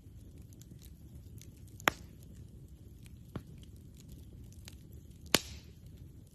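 Wood campfire crackling: scattered small ticks over a low steady rumble, with two sharp loud pops about two and five seconds in and a softer pop between them.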